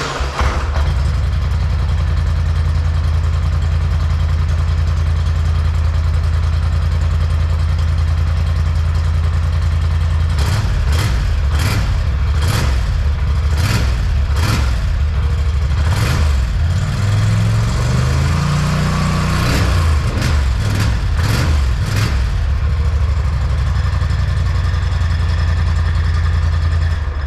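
2021 Polaris Sportsman 850 Highlifter's twin-cylinder engine on its stock exhaust, running on a cold start with a choppy idle. Through the middle it is blipped with a run of quick throttle revs, then it settles back to idle.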